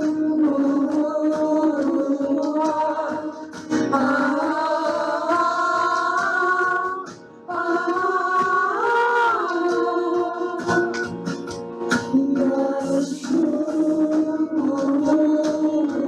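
Live worship music: a sustained melody line held note by note over a pad of chords, with light percussion taps.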